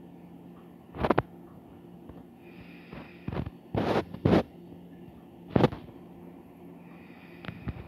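A person sniffing and breathing sharply through the nose close to the microphone, in about seven short puffs, over a faint steady hum.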